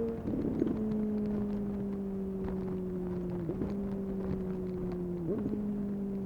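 Suzuki GSX-S750 inline-four engine through a Yoshimura SQ11 exhaust with no dB killer and the catalytic converter removed, running off the throttle with its pitch sinking slowly as the bike slows. The pitch is broken twice by a quick dip and jump back up, once about three and a half seconds in and again near five seconds, like downshifts.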